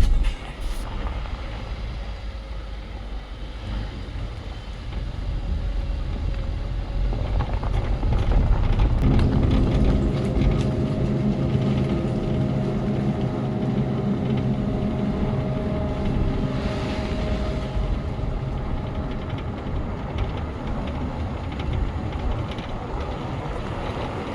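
A vehicle driving along a road, with road and engine noise throughout. From about nine seconds in a steady, even-pitched engine hum rises over the rumble and fades out around twenty seconds.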